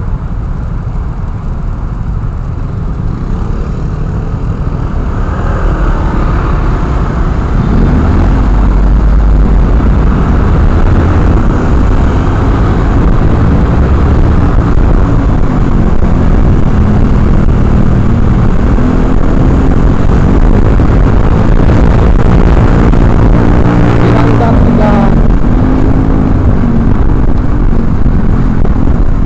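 Motorcycle engine running under way, its pitch rising and falling as the bike accelerates and changes speed, under a loud low rumble of wind on the helmet microphone.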